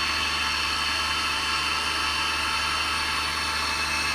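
Quorn tool and cutter grinder's electric motor and spindle running steadily and quietly, switched to spin in reverse: an even hum with a few steady tones.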